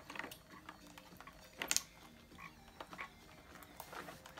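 A wooden craft stick stirring a glue-and-glitter slime mixture in a plastic tray: light, irregular clicks and scrapes, with one louder click a little under two seconds in.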